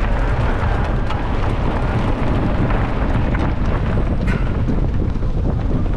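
Wind buffeting the action camera's microphone as a mountain bike accelerates off the start line, with knobby tyres rolling over grass and gravel. A few short knocks and rattles from the bike.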